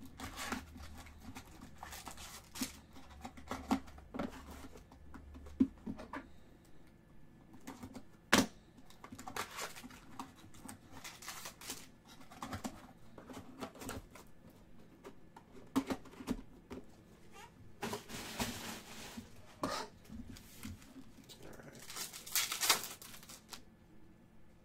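Handling of a cardboard card box and foil-wrapped baseball card packs: scattered sharp taps, clicks and rustles. A foil pack wrapper is torn open near the end, with longer crinkling bursts.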